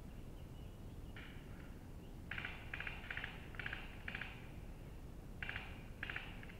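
A small animal, likely a woodland bird, giving short rattling calls, about eight of them in irregular bunches, over a low steady rumble of wind on the microphone.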